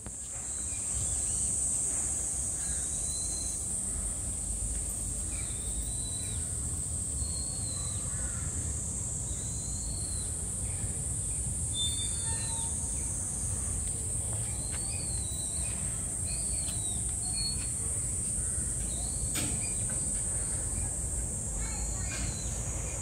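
A steady high-pitched insect drone with many short high chirps at irregular intervals, over a low outdoor rumble.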